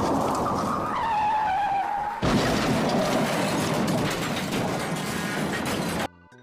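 Race cars' engines running at speed on an oval track, with a high whine that falls in pitch about a second in. Near the end the sound cuts off abruptly and music begins.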